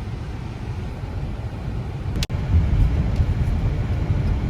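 Steady low rumble of road and engine noise heard from inside a moving car, with a sharp click and a momentary dropout about halfway through, after which the rumble is a little louder.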